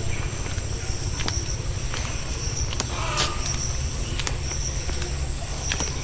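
Insects shrilling steadily in a high, thin, pulsing drone, over a constant low rumble and a few soft clicks.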